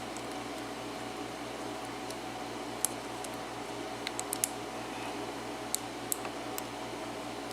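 Faint, scattered metallic clicks and ticks of a lock pick working the pin stack of a five-pin Tesa padlock under tension, with a few clustered together about four seconds in, over a steady background hum.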